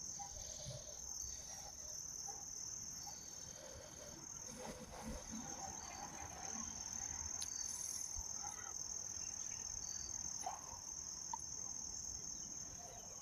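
A steady, high-pitched insect chorus, with faint scattered rustles and ticks over it.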